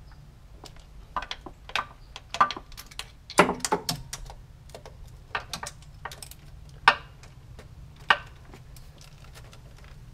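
Irregular clicks and knocks of hands moving parts, hoses and wiring around in a car's engine bay, with a few sharper clicks standing out.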